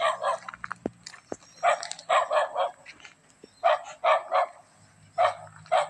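Dog barking repeatedly, in quick runs of several barks with short pauses between them.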